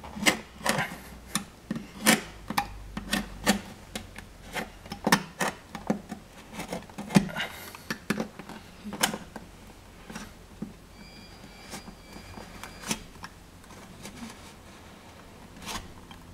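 Utility knife blade scoring the paint along the edge of a switch wall plate: a run of irregular sharp scratching clicks, busiest in the first ten seconds and then sparser.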